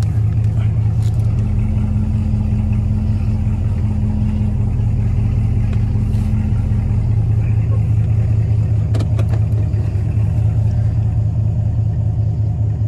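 2016 Camaro SS's V8 idling steadily, heard from inside the cabin, with a few faint clicks.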